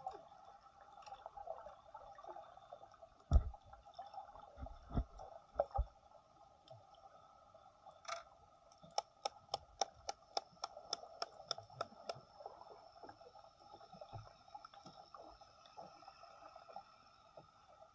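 Muffled sound heard underwater through the camera: a steady hum, a few low thumps, and partway through a run of about a dozen evenly spaced sharp clicks, three or four a second.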